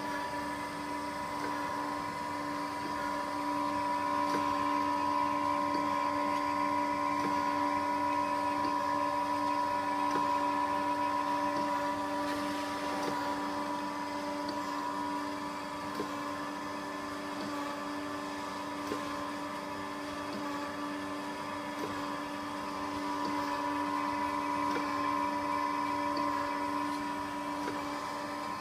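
Okamoto PSG63DX surface grinder running, a steady machine hum with a higher whine that grows louder twice for several seconds.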